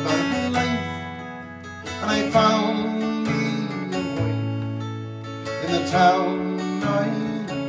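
Acoustic guitar strummed in a slow folk-ballad accompaniment, chords struck about every two seconds over ringing bass notes.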